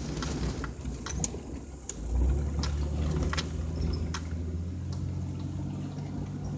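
Vehicle engine running as it drives slowly along a rough dirt track, a steady low hum that grows stronger about two seconds in, with scattered sharp clicks and knocks as the vehicle jolts over the ruts.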